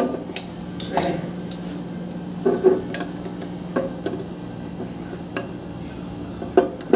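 Irregular metallic clinks and knocks of a screwdriver and tools against the casing of a split AC outdoor unit's fan motor as its screws are worked loose, over a steady low hum.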